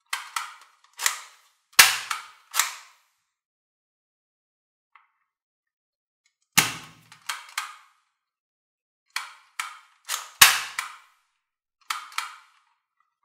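Plastic toy guns clicking and snapping as they are worked. Sharp clicks come in three bursts, and the loudest ones, about two seconds in and about ten seconds in, carry a heavier thud.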